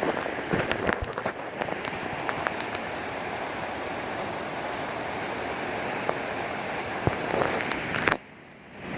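Heavy rain pouring down in a severe thunderstorm, with a steady hiss and scattered close drops spattering. The sound drops out briefly near the end.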